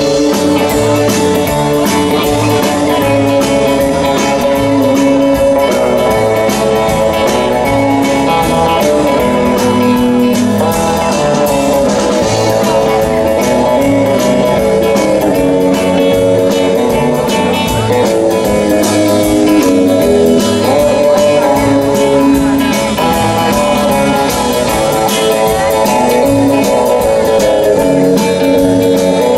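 Live rock and roll band music led by a Fender Stratocaster electric guitar, with a steady beat underneath.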